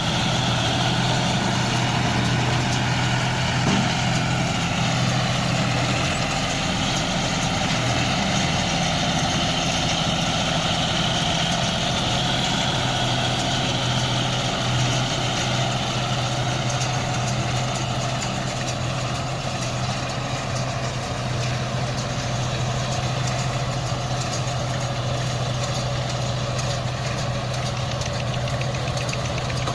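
Tractor engine running at a steady speed, driving a Gomadhi round baler, with the baler's machinery noise over a constant engine hum.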